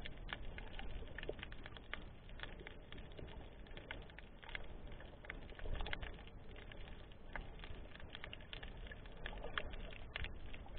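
Underwater ambience picked up by a submerged camera: a steady scatter of small irregular clicks and crackles over a low water rumble.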